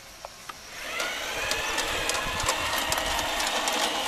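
G-scale electric model locomotive running across the level crossing, its motor and gears whining steadily and its wheels clicking over the rail joints, starting about a second in.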